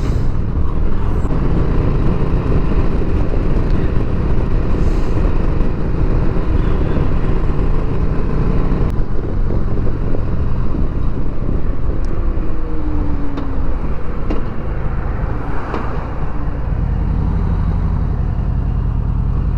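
2020 Harley-Davidson Sport Glide's Milwaukee-Eight 107 V-twin engine running while the bike is ridden, with steady road noise. Near the end the engine note settles into a steadier, more even sound.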